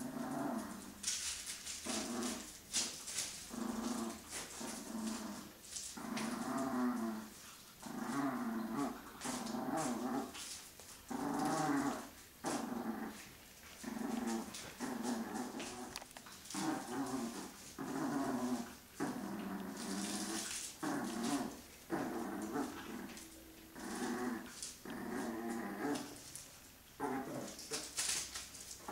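Chihuahua puppies growling in tug-of-war play over a rope toy, in repeated bouts of a second or two each, with short clicks in between.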